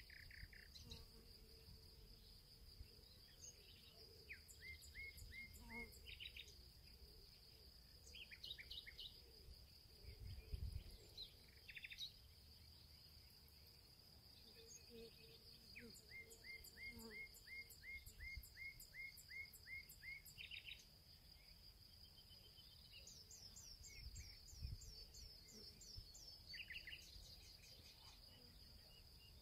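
Faint birds chirping in runs of short repeated calls over a steady high-pitched tone, with a soft low thump about ten seconds in.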